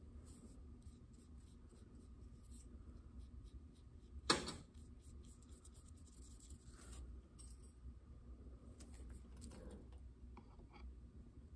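Faint scratching and light handling sounds, with one sharp click about four seconds in, over a low steady hum.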